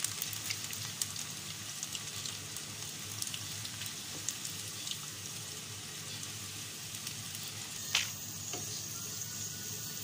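Breaded onion rings frying in hot oil in a pan: a steady sizzle with many small crackling pops. One sharp, louder click comes about eight seconds in.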